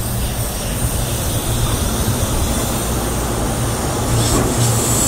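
Kintetsu electric limited express train running slowly past at low speed, a steady hum and rumble that grows a little louder near the end.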